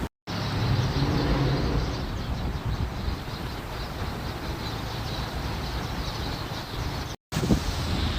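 Strong wind rushing over the microphone, with a low rumble under a steady hiss. The sound cuts out completely for a moment just after the start and again about seven seconds in.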